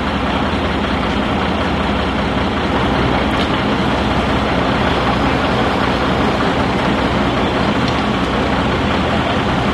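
Diesel engine of a crane truck running steadily at constant speed, a low drone that does not change.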